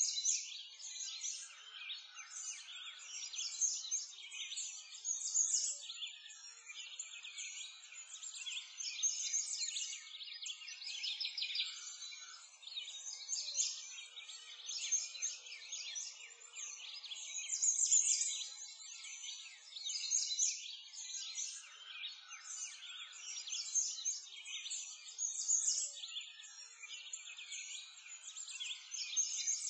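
Dense chorus of small birds chirping continuously, thin and high with no low end.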